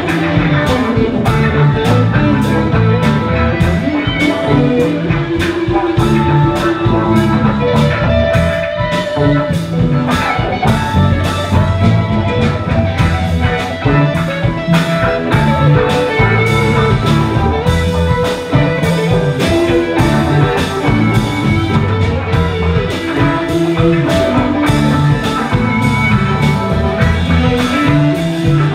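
Live rock band playing: electric guitar, violin, bass and keyboards over a steady drum beat.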